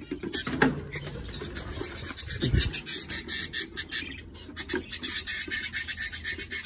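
Budgerigars chattering and squawking in an aviary, with rapid, dense chirps throughout. A wooden nest box is handled over the top, with a dull knock about two and a half seconds in.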